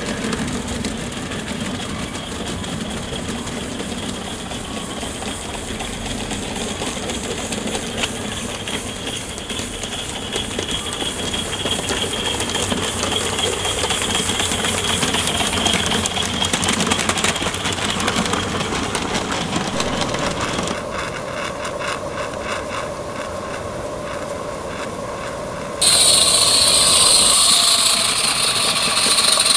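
Small live-steam garden-railway locomotives running on 32 mm gauge track: steam hiss and exhaust beat with the wheels running over the rails, the character shifting from one clip to the next. About three quarters of the way through, a much louder steady steam hiss starts suddenly.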